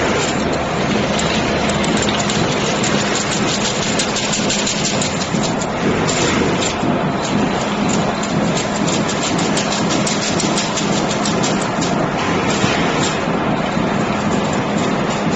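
Double chain-link (diamond mesh) fence weaving machine running: a steady motor hum under a dense, continuous clatter of wire and metal parts.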